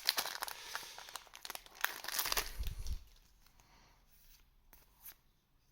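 Crinkling and tearing of a trading card booster pack wrapper being handled and opened, dense for about three seconds, then dropping away to a few faint ticks.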